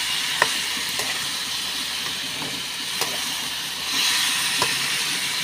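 Chopped tomatoes and onions sizzling in a hot metal pan as they are stirred. A few sharp clicks come from the spatula against the pan, and the sizzle swells briefly near the end.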